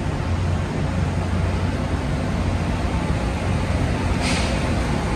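Steady low hum and rumble of a commuter train standing at the platform, with a short hiss about four seconds in.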